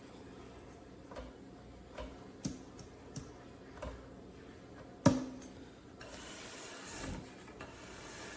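A series of light clicks and knocks, with one sharp knock about five seconds in, followed by a couple of seconds of rubbing or rustling: objects being handled.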